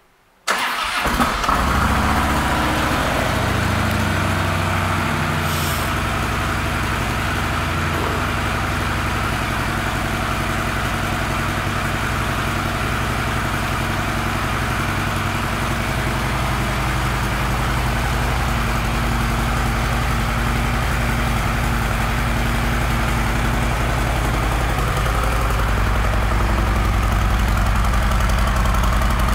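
2012 Harley-Davidson Ultra Classic Electra Glide's Twin Cam V-twin engine cranking and catching about half a second in, then idling steadily.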